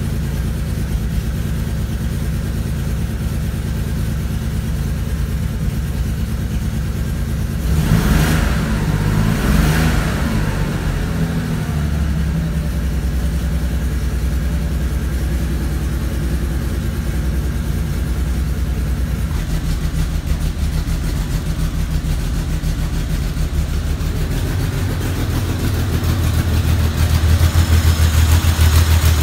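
Air-cooled flat-six of a 1973 Porsche 911T idling, blipped twice in quick succession about eight and ten seconds in, then settling back to a lower, steady idle. It grows louder near the end, heard close to the open engine compartment.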